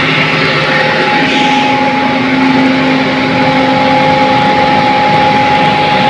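Rice hulling machine running with a steady mechanical drone and hum, paddy feeding down through its hopper while milled rice pours out of its chute. The grain is on a repeat pass through the huller to strip off the remaining husk.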